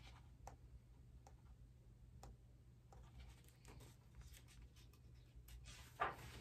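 Near silence with a few faint clicks from a picture book being held and handled; about six seconds in, its paper pages rustle as they are flipped.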